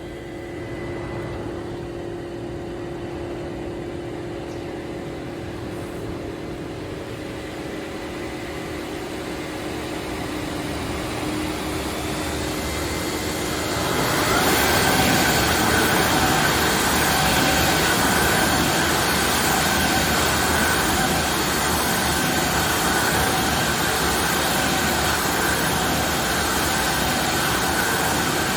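Murata DB600R deburring machine running with its dry dust collector, a steady machine whir with a faint hum. About halfway through the noise steps up to a louder, harsher whir and stays there.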